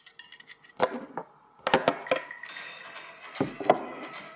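Tableware being handled on a table: several sharp clinks and knocks of a ceramic dish, a drinking glass and cutlery being set down and picked up.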